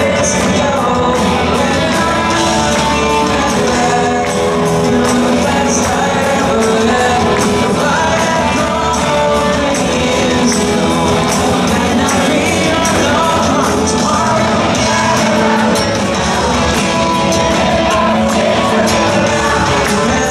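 Alternative rock band playing live in a large hall: drums, electric bass and electric guitars under a male lead vocal, with a tambourine shaken along to the beat.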